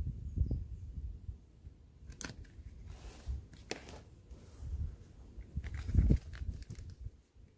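Paper transfer tape being peeled off and rubbed over a vinyl car decal, in a few short rips and crinkling rustles, with a dull low thump about six seconds in.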